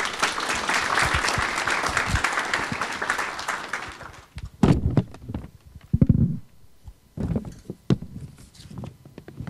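Audience applauding, dying away after about four seconds, followed by a few scattered knocks and thumps.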